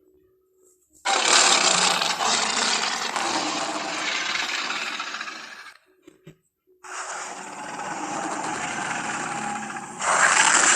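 Two long, harsh roars from a movie-monster sound effect, the Rhedosaurus's roar. The first starts about a second in and lasts about five seconds; the second starts about a second after it ends and grows louder near the end.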